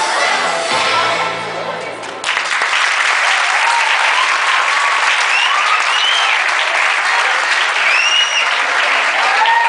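Music plays and cuts off about two seconds in, and a crowd of schoolchildren bursts into loud applause, with cheering voices rising and falling over the clapping.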